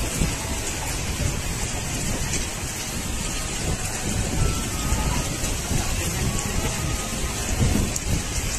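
Heavy rain pouring down steadily, a dense even hiss, with a low rumble underneath that swells briefly near the end.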